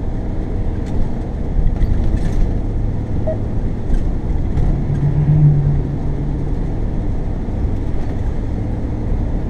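Vehicle driving on a wet road: a steady low rumble of engine and tyres, with a brief steady hum about five seconds in.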